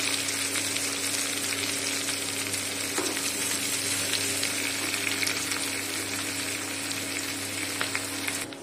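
Sliced onions sizzling in hot oil in an aluminium kadhai, stirred with a steel spoon that clicks and scrapes against the pan now and then, over a low steady hum. The sizzle drops off abruptly near the end.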